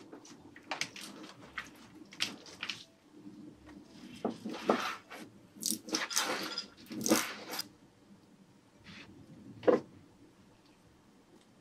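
Kitchen knife slicing through a boiled octopus tentacle and knocking on a wooden cutting board: a run of irregular cuts, denser and louder in the middle. A single sharp knock near the end.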